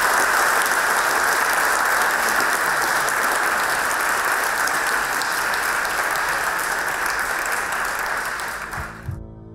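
Audience applauding, a dense steady clapping that tapers off near the end and is cut off, with soft ambient music starting just before the end.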